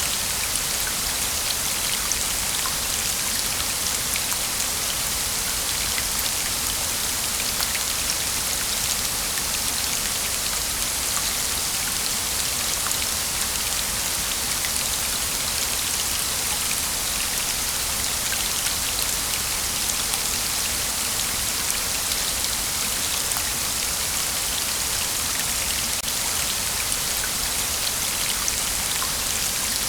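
Waterfall: a steady, even hiss of falling water with faint scattered droplet ticks, unchanging throughout.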